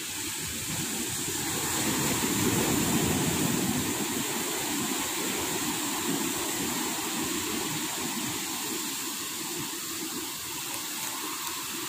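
Sea surf breaking and washing up a sandy beach: a steady rushing noise that swells a couple of seconds in, then eases.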